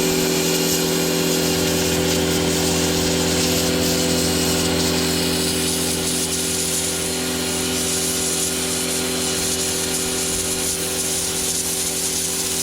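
Parkside PHD 110 D1 1300-watt electric pressure washer running steadily while spraying. Its motor and pump give a steady hum under the hiss of the water jet. The washer cuts out at the very end, its hum falling away as it winds down.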